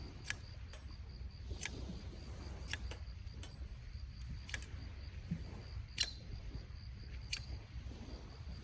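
Wood campfire crackling: single sharp pops at irregular intervals, about seven in all, over a low steady rumble.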